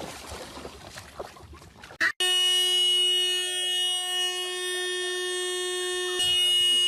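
Low background noise with faint voices, then about two seconds in a sudden cut to a loud, steady, horn-like tone that holds without changing pitch to the end.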